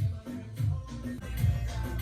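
Background music with a steady beat and deep bass hits.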